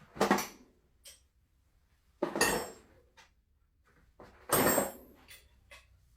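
Metal clanks and clinks from a turbocharger being handled as its wastegate is twisted by hand: three sharp clanks roughly two seconds apart, with a few light ticks between.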